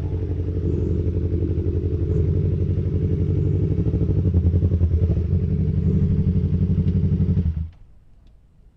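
Yamaha MT-25's parallel-twin engine idling steadily, then switched off about seven and a half seconds in, the sound cutting off suddenly.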